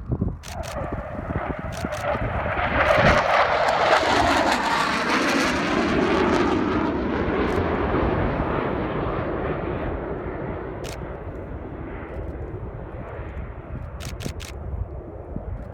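Panavia Tornado jet flying past: its engine noise builds to a peak a few seconds in, drops in pitch as it passes, then slowly fades away. Camera shutter clicks in short bursts over it, several times.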